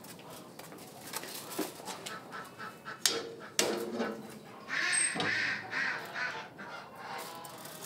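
Farmyard birds calling in short bursts, loudest from about three to six seconds in, with scattered sharp clicks and knocks.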